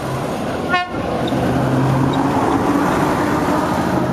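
Vintage coast tram motor car passing close by: steel wheels rumbling on the rails with a low motor hum, growing louder as it comes alongside. A very short horn toot sounds about a second in.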